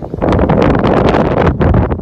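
Wind buffeting the microphone: a loud, uneven rush of wind noise that gusts and dips throughout.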